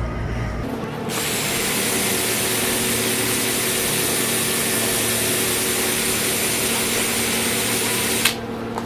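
A power tool runs steadily at one speed for about seven seconds, then cuts off abruptly with a click.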